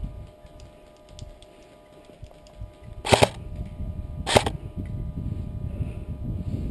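Airsoft rifle fired in two short bursts about a second apart, each lasting about a quarter second, over low rumbling handling noise.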